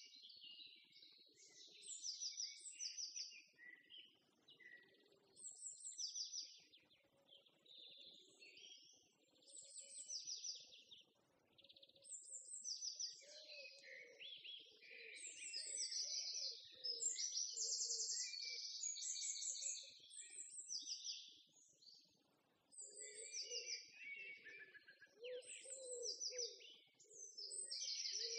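Songbirds chirping and singing in many short calls and quick trills, with a lower pulsing sound beneath that grows stronger near the end.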